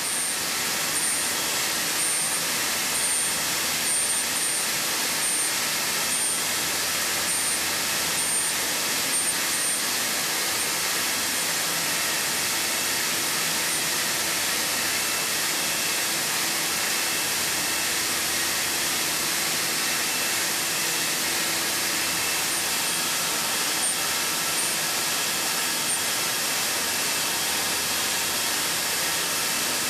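YASDA 5-axis CNC machining centre milling HPM31 steel hardened to 58 HRC with a carbide ball nose end mill: a steady hiss of machining noise with faint high tones.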